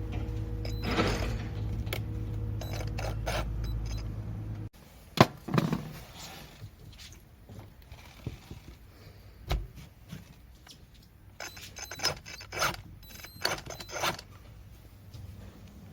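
A steady mechanical hum that cuts off abruptly about five seconds in, followed by scattered metallic clicks, knocks and scrapes of hand tools and metal parts being handled during engine repair work.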